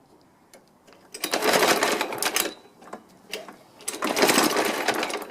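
Suffolk Punch 30S lawnmower engine running unevenly: it dies away almost to nothing, then picks up twice in loud spells of about a second and a half, with scattered ticks in between. This is the rough, banging idle the owner has not cured with a cleaned carburettor and a decoke.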